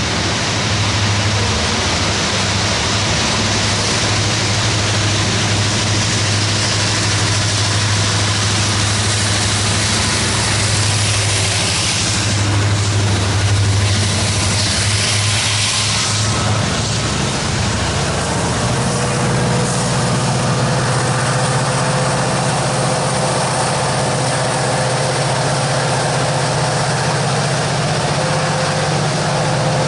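Heavy freight diesel locomotives working hard under load up a grade: a loud, steady low engine drone with rolling train noise. About two-thirds of the way through, the engine pitch steps up and a faint steady whine joins it.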